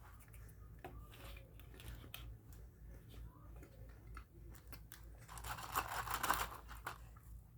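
Close-up chewing of crispy fast food, with scattered small crunches. About five and a half seconds in comes a louder, noisier stretch of about a second and a half.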